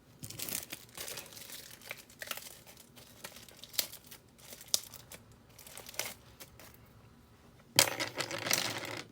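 Packaging crinkling and tearing as it is handled, in irregular rustles with a louder stretch of about a second near the end.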